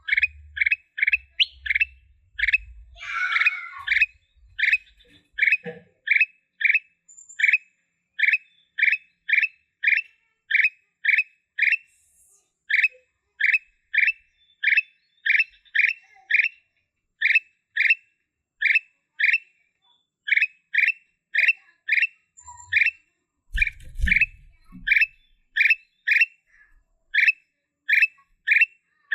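A kutilang emas bulbul calling: the same short, sharp note repeated evenly, about two a second. A brief rustle comes a few seconds in, and a low thump comes near the end.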